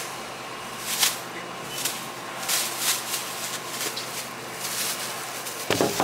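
Thin plastic produce bag crinkling in short bursts as carrots are put into it, with a louder thump near the end, over a faint steady hum.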